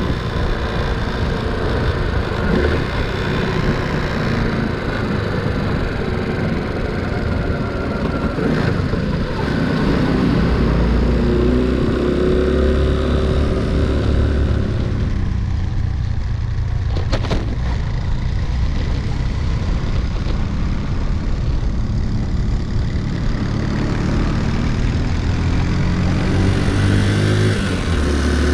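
Honda C90 step-through motorcycle's small four-stroke single-cylinder engine running on the move. Its pitch climbs under throttle about halfway through, eases off for a few seconds, then picks up again, with a single short click near the two-thirds mark.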